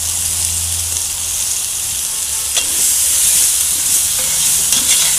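Smoked bacon pieces sizzling steadily in a hot cast-iron Dutch oven. A few sharp clicks come from a metal slotted spoon knocking against the pot as the bacon is stirred, about halfway through and again near the end.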